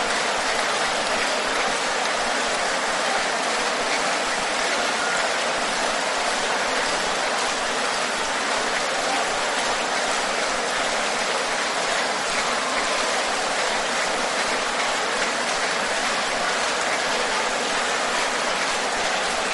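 A large congregation praying aloud all at once, many voices blending into a steady, even wash of sound with no single voice standing out.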